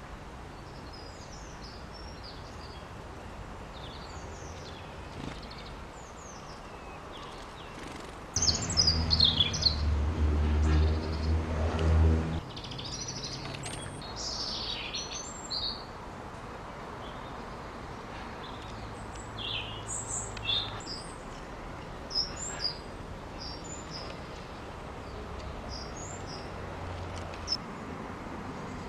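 Small garden birds chirping and singing in short high phrases throughout. A loud low hum with a steady pitch starts suddenly about eight seconds in and cuts off about four seconds later.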